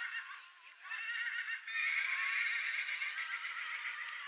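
Horse whinnying: a short call about a second in, then a longer quavering whinny.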